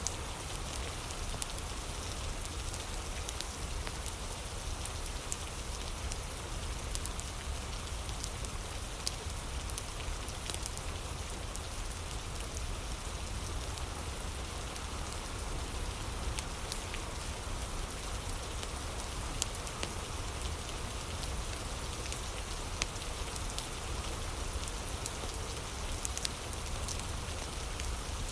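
Steady rain falling, an even hiss with scattered sharp ticks and clicks throughout.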